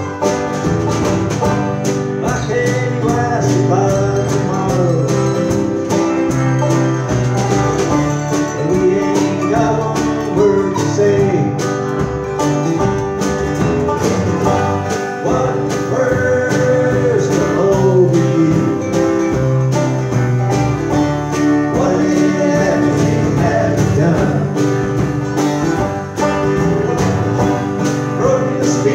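Bluegrass band playing live: banjo, mandolin, acoustic and electric guitars over upright bass and drums, with fast plucked notes throughout.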